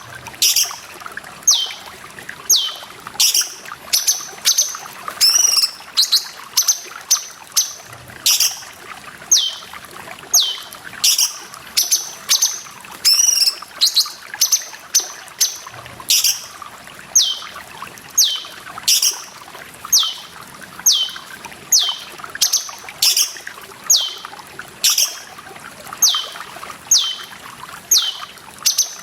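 Cucak cungkok bird calling over and over, each call a short high note sweeping downward, about one a second, over steadily trickling water.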